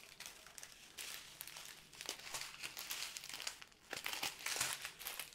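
Clear plastic bags of square diamond-painting drills crinkling as hands handle and shift a strip of them, in several bursts with short pauses.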